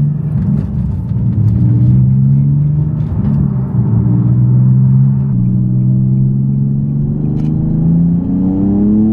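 Nissan 370Z's 3.7-litre V6 running through a Flashark catback exhaust, heard from inside the cabin while accelerating. The engine note climbs in pitch, drops back and climbs again as the car pulls through the gears.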